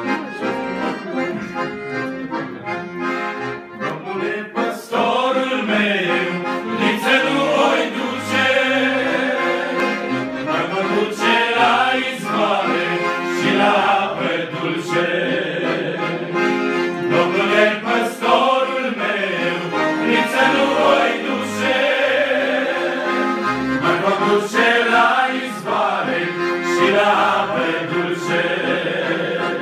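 A group of men singing a folk song together with accordion accompaniment.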